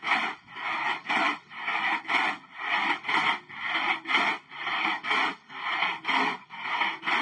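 Rhythmic back-and-forth scraping, about two strokes a second, each stroke rasping and even in strength.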